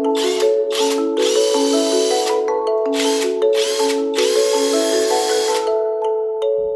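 Yato 18V brushless cordless impact wrench run in six short trigger pulls, the longest over a second, over background marimba music.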